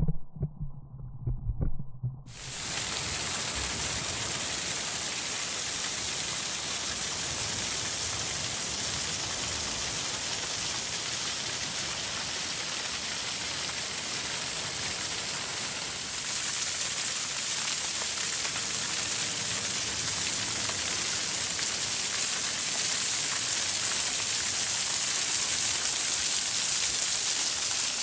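Small waterfall pouring down a rock face and splashing onto stones: a steady rushing hiss that cuts in about two seconds in and gets a little louder about halfway through. A few low thumps come before it.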